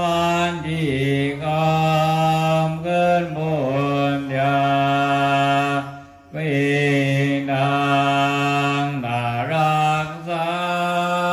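A Buddhist monk chanting in one male voice, long held tones stepping between a few pitches, broken by a breath about six seconds in.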